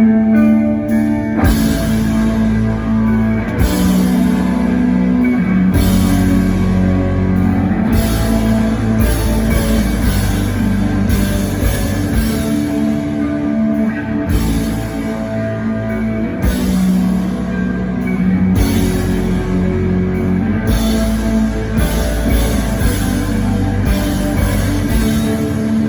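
Instrumental post-rock band playing live: layered electric guitars ring out, then the drums and bass crash in about a second and a half in, and the full band plays on heavily.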